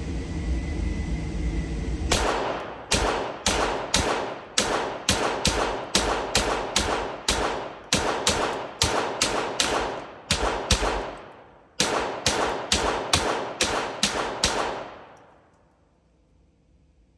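Smith & Wesson M&P 15-22 semi-automatic .22 rifle fired rapidly, about two to three shots a second, each shot echoing in an indoor range. A long string of shots begins about two seconds in. After a short pause near the middle there is a second string of about ten shots, and the echoes die away near the end.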